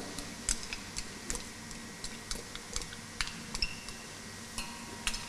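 Onions frying in hot oil in a steel pot, crackling and spitting faintly as minced garlic is tipped in: light, irregular ticks.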